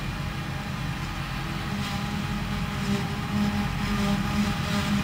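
Claas Jaguar self-propelled forage harvester and a Volvo articulated truck running side by side, the harvester chopping grass and blowing it into the truck's trailer. A steady engine drone that grows a little louder from about two seconds in.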